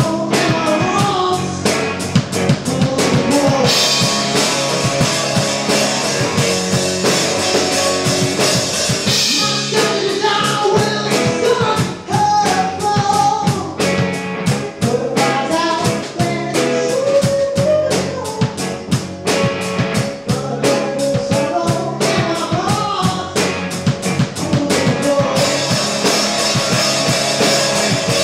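Rock band playing live: electric guitars, bass guitar and drum kit, with a lead vocal over them.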